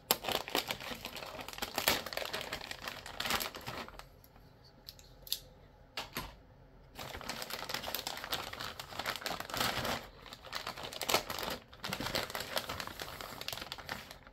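Thin clear plastic bag crinkling in quick crackling clicks as it is opened and the plastic model kit's sprue frames are slid out; it goes quieter for a few seconds in the middle.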